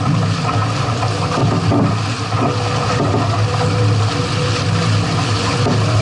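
Steady rushing wind and water noise aboard a sailing catamaran underway, with a strong low rumble beneath it.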